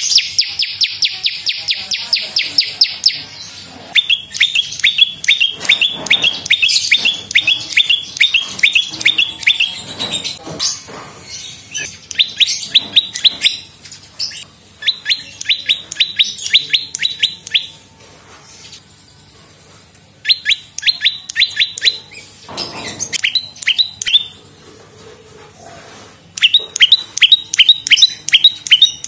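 Prenjak lumut singing in repeated bouts of rapid, sharp, high chip notes, about five or six a second, each bout lasting a few seconds with short pauses between.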